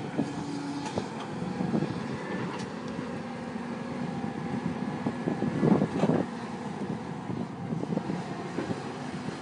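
Caterpillar hydraulic excavator's diesel engine running steadily under load as it digs and swings, with a few short knocks and a louder burst of clatter about six seconds in.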